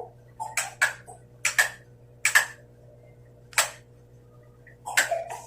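Signal flag cloth being handled and shaken: about eight short, sharp swishes and snaps, several in quick pairs, over a faint steady hum.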